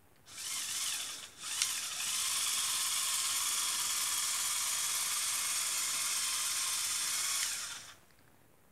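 Small electric motors and plastic gearing of a Lego Technic half-track model running, a steady high whirr. It stops briefly after about a second, then runs evenly for about six seconds before cutting off.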